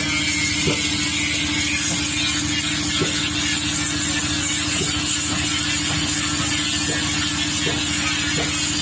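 A motor running steadily: a constant hum over a high hiss, with a few faint knocks now and then.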